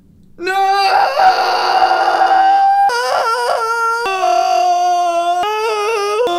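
A man's loud, drawn-out anguished wail. It starts about half a second in with one long high cry, then breaks into a run of held cries that jump between pitches.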